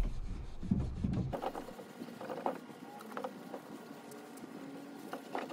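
A wet rag rubbed and wiped back and forth over a freshly paint-stripped wooden sideboard top, giving faint, irregular scrubbing sounds.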